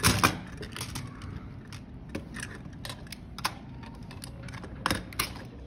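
Chunky plastic toy building pieces and wheels clicking and knocking as they are handled and set down on a wooden table. Scattered sharp clicks, the loudest right at the start and a couple near the end.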